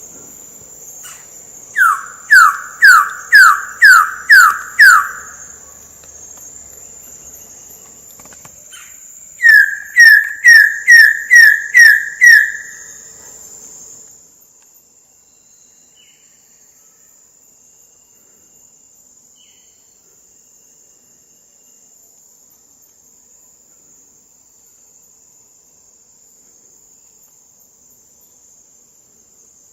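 Wilson's bird of paradise calling: two runs of about seven loud, quickly repeated descending notes, several seconds apart. A steady high-pitched insect buzz runs underneath and drops away about halfway through.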